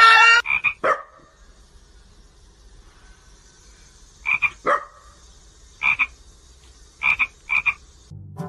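A frog croaking in short calls, singly and in quick pairs, with quiet stretches between them. At the very start a cat's loud falling cry cuts off.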